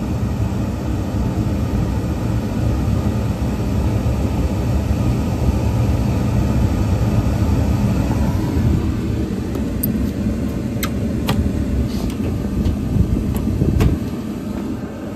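York gas rooftop unit running in heat mode, its burners lit and new draft inducer running, a steady low rumble. Several sharp clicks in the last few seconds as a hand works the unit's access panel, after which the rumble drops a little.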